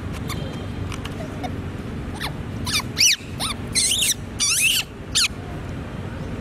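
Long-tailed macaque squealing: about half a dozen short, shrill screeches that bend up and down in pitch, starting about two seconds in and ending near the end, at another monkey crowding in on its food. A steady low background rumble runs underneath.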